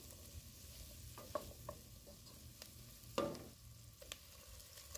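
Diced onion and garlic sizzling quietly in butter in a pan, stirred with a wooden spoon. A few light spoon scrapes and taps against the pan, the loudest about three seconds in.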